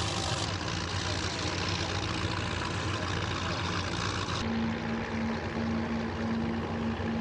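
Engines running steadily under a broad hiss. About four seconds in, the hiss drops away and a steady low hum sets in.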